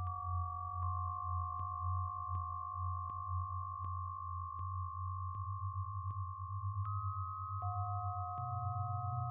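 A sonification synthesiser built in MaxMSP, each voice standing for one melanoma cell, sounding several steady pure sine tones at different pitches over a pulsing low hum. There are faint clicks about every three-quarters of a second. The highest tones drop out around the middle, and a mid tone comes back near the end.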